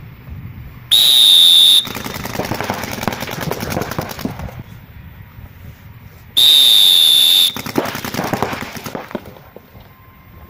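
A loud, steady high-pitched signal tone sounds for about a second, then paintball markers fire in rapid strings of many shots a second for two or three seconds; the same tone-then-rapid-fire sequence repeats about halfway through.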